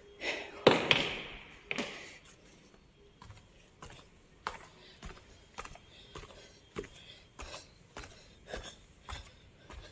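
A loud rustle in the first two seconds, then footsteps on the aisle steps of a cinema hall, a steady tread of short knocks about every half second or so.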